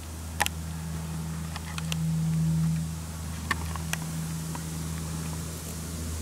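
A low, steady engine drone that swells a little about two seconds in, with a few sharp clicks over it.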